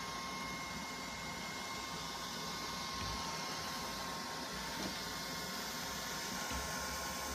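Neato Botvac D80 robot vacuum running as it moves across the floor: a steady whirring noise with a thin, steady high whine over it.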